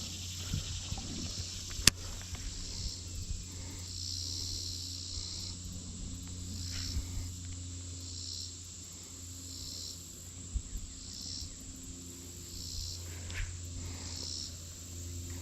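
Insects chirping in short high pulses, roughly one a second, over a steady low hum, with a single sharp click about two seconds in.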